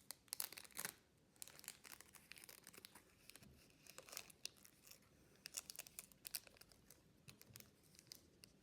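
Faint, irregular rustling and crinkling of Pokémon trading cards and a foil booster-pack wrapper being handled, with small ticks and scrapes.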